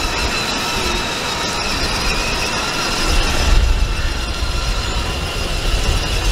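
Children's battery-powered ride-on toys driving over brick paving: hard plastic wheels rattling on the pavers along with the running of their small electric drive motors. A deeper rumble comes in about halfway through.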